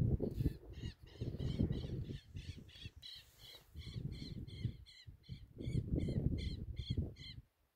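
A bird calling over and over, about three short calls a second, stopping about seven seconds in, with wind gusting on the microphone.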